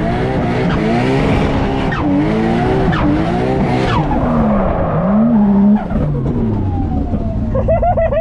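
Drift car heard from inside the cockpit during a drift run: the engine revs up and down over and over while the rear tyres spin and squeal. About six seconds in the driver lifts off and the engine note falls away as the car comes to a stop.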